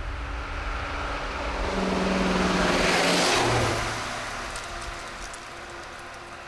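A road vehicle passes close by: its sound builds to a peak about three seconds in, the engine note drops sharply in pitch as it goes past, and then it fades away.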